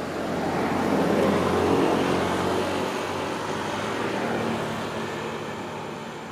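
A motor vehicle passing by: engine noise with a low hum that grows louder over the first couple of seconds, then slowly fades away.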